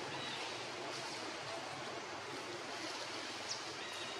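Steady outdoor ambient rush with no clear single source. A few faint high chirps rise over it, the sharpest one about three and a half seconds in.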